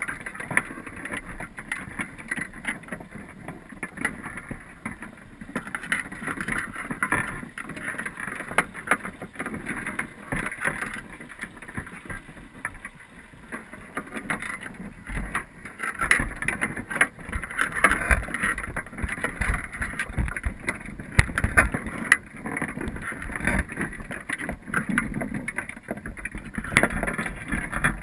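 Underwater sound inside a crab pot full of Dungeness crabs: a steady watery hiss with many small clicks and scrapes, typical of crab shells and legs knocking against each other and the wire mesh. A few low thumps come past the middle.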